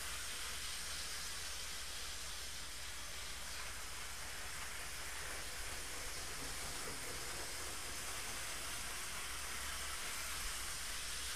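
OO gauge model trains running on the layout's track: a steady, even whirring hiss of the small motors and wheels on the rails, with a low hum underneath and no change in pace.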